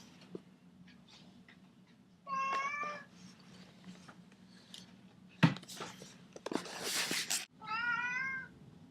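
Two short meows, about five seconds apart, each rising slightly in pitch. Between them come a sharp knock and a brief rustling noise.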